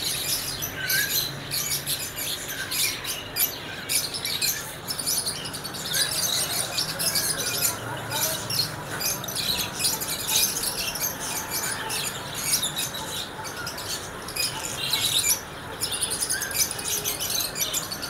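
Many small caged birds, lovebirds among them, chirping and chattering: a dense, continual stream of short, high, shrill chirps with a few whistled glides mixed in.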